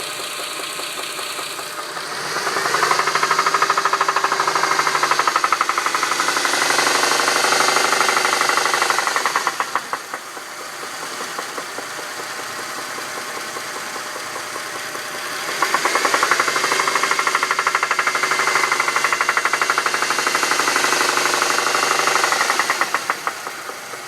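The 2.7-litre V6 of a 2007 Dodge Charger running, revved up twice for several seconds each time, with a loud rapid knock that gets louder with the revs. The knock began after the engine ran almost out of oil and new lash adjusters have not cured it; the owner suspects rod knock.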